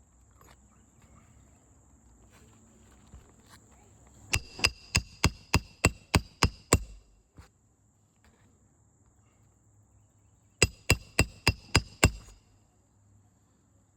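Roofing hammer striking a steel roof snake to drive roofing nails under a lifted asphalt shingle: two runs of sharp, ringing metal-on-metal blows, about three a second, nine or so in the first run and about seven in the second.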